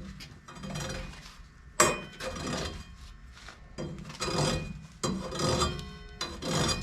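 Metal parts of an old Craftsman table saw being handled: a series of irregular clinks and scrapes, a few of them briefly ringing, with no motor running.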